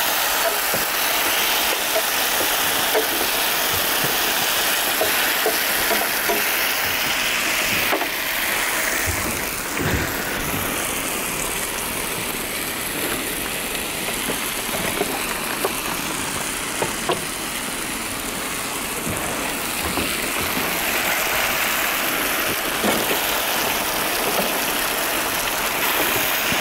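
Chicken breast fillets sizzling as they fry in a nonstick pan: a steady hiss with small crackles, and a few sharper taps near the middle.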